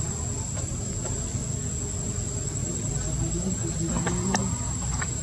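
Insects drone as a steady, high-pitched tone over a low background rumble. Between about three and four and a half seconds in, there is a brief low voice-like sound and a few sharp clicks.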